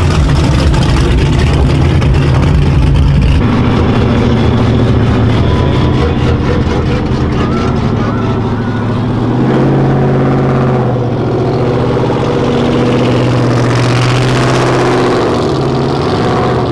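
Drift car's engine revving hard and held at high revs, its pitch stepping up about halfway through, with a hiss of tyre noise over it for a few seconds.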